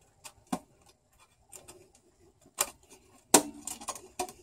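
Sharp metallic clicks and snaps, about half a dozen spread apart, the loudest a little after three seconds, as a pick pries the locking tabs of a GM car radio's sheet-metal bottom cover loose.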